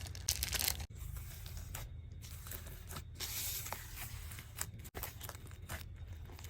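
Foam beads being added to and worked into glue slime, making irregular crackles and rustles.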